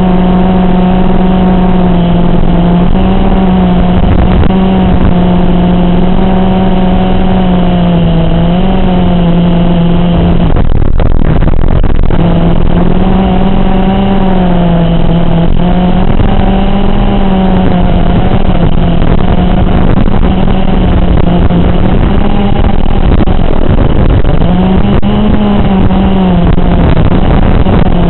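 Motors of a 5-inch FPV racing quadcopter whining in flight, the pitch wavering up and down with throttle over a steady hiss. The whine drops out for about a second around the middle, and rises and falls in one sweep near the end.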